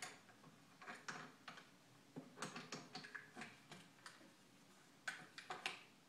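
Faint, irregular metal clicks and taps of a wrench being fitted and worked on the headstock's bolt beneath a wood lathe.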